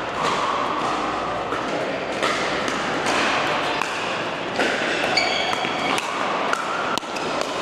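Pickleball paddles hitting plastic balls and balls bouncing on hard indoor courts, as sharp pops at irregular intervals over a steady, echoing hall din. A brief high squeak comes about five seconds in.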